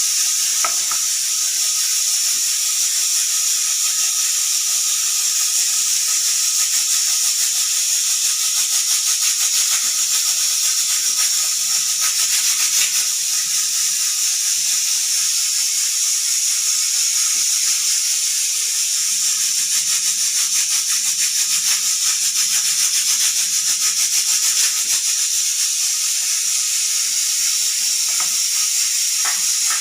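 Pressure cooker venting steam past its whistle weight: a steady, loud hiss with a fine, fast rattle running through it.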